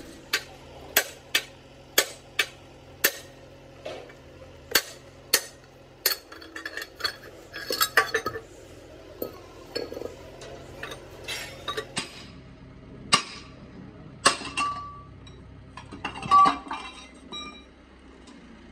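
Sharp metal-on-metal clinks and taps from tools and engine parts being handled: a quick run of strikes about two a second for the first few seconds, then irregular and scattered, over a low steady hum.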